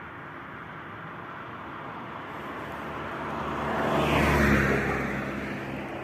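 A motor vehicle passing by, growing louder to a peak about four and a half seconds in and then fading.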